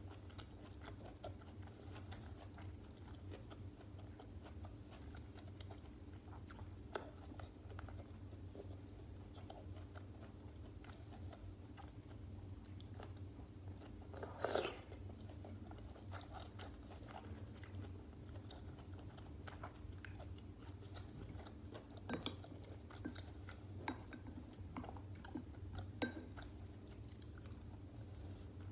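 Close-miked chewing of stuffed cabbage rolls: many small wet clicks and smacks of the mouth, with one louder burst about halfway through. A steady low hum runs underneath.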